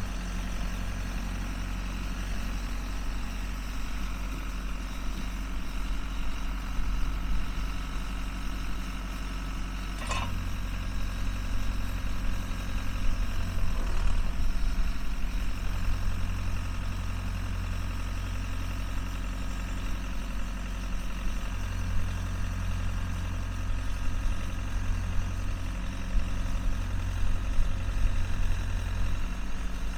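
Case 580B backhoe loader's engine running steadily at idle.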